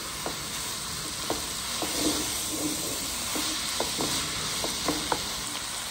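Spaghetti, chicken and vegetables sizzling in a hot non-stick pan while a plastic spatula stirs and tosses them. The spatula gives about a dozen light, irregular taps and scrapes against the pan over the steady hiss of frying.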